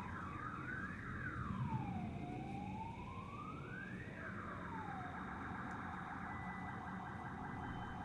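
Siren wailing: a clear tone sweeps slowly up and down twice, then about five seconds in switches to a fast repeated yelp. A low rumbling noise runs beneath it.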